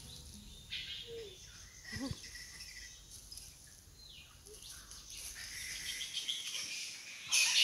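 Fruit bats (flying foxes) squeaking and chattering up in the trees: scattered high-pitched chirps and squeals over a steady high hiss, getting louder near the end.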